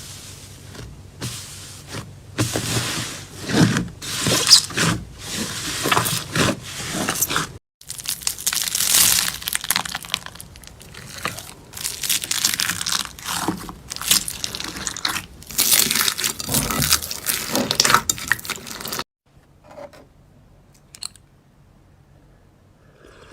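Slime being squeezed and pressed by hand, making dense crackling and crunching pops. The sound stops about nineteen seconds in, leaving only a few faint squishes.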